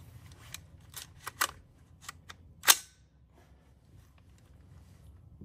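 A 5.56 AR-style rifle fires once: a single sharp crack about two and a half seconds in, the loudest sound here. Several fainter clicks and pops come before it.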